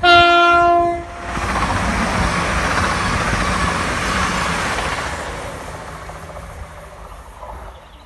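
An East Midlands Railway Class 222 Meridian diesel train gives one short horn blast about a second long. It then passes close by at speed, and the noise of its wheels and engines fades away over the last few seconds.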